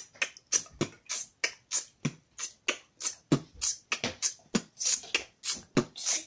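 Beatboxing: a steady, fast rhythm of mouth-made percussion, sharp snare- and hi-hat-like clicks about three a second, with a low kick-like thump every few beats, standing in for energetic dance music.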